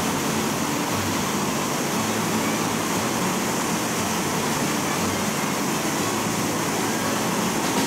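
Whitewater rapids rushing, a steady even noise.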